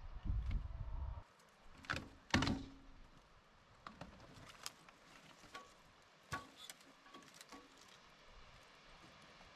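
Scattered knocks and clicks over a low rumble in the first second; the loudest knock comes about two and a half seconds in.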